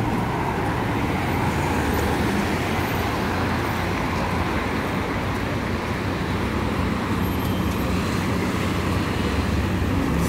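Jaguar F-Type coupe's engine idling steadily, with no revving, mixed with passing road traffic.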